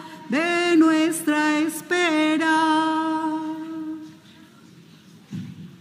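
A solo cantor singing a line of a Spanish hymn unaccompanied, ending on a long held note that dies away about four seconds in. A short low thump near the end.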